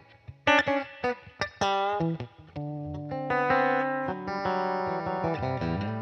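Solo Fender Telecaster electric guitar playing blues: short, clipped picked notes for the first couple of seconds, then longer held notes left ringing.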